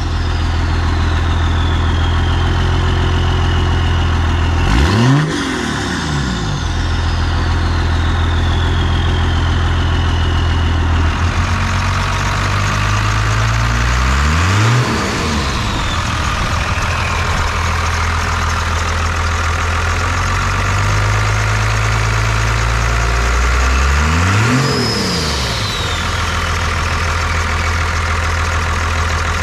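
1993 Dodge Ram 250's 12-valve Cummins inline-six turbo diesel idling and revved briefly three times. After the revs, the turbo's high whistle falls in pitch as it spools down.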